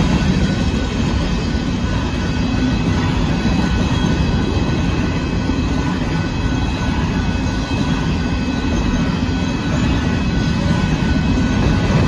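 Covered hopper cars of a Union Pacific grain train rolling past: a steady low rumble of wheels on rail, with faint steady high tones above it.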